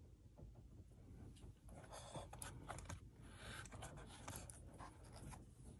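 Faint scraping and light clicks of Sennelier oil sticks being handled and slid among the slots of their wooden box tray, from about a second and a half in until just past five seconds.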